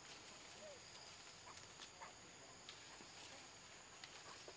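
Near-silent forest background: a faint, steady high-pitched insect drone, with a few soft scattered clicks and taps.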